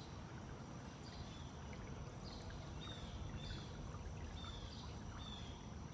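Steady flowing of shallow creek water, with a bird repeating short, high, falling chirps about twice a second from about a second in.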